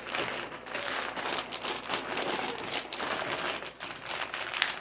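Potato chip bag crinkling: a continuous dry, crackly rustle made of many fine clicks.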